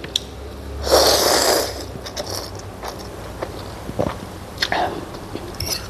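Close-up eating sounds of noodle soup (pork thukpa): a loud slurp of noodles about a second in, followed by chewing with many small clicks.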